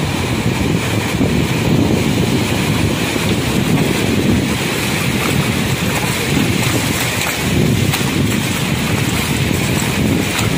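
Wind on the microphone making a steady low rumble over the wash of surf in shallow sea water.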